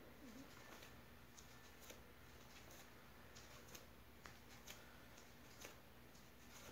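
Faint, irregular soft clicks over near-silent room tone: a bare foot treading a lump of white porcelain clay body on a wooden board.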